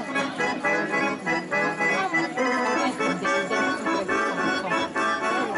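Lively Serbian kolo dance music led by accordion, a fast melody over a quick, even beat.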